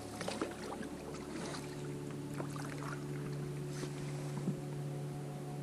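Small splashes and knocks from hands working at the water beside an inflatable boat, most of them in the first half, with one sharper knock near the end. Under them runs a steady low hum that grows stronger about two seconds in.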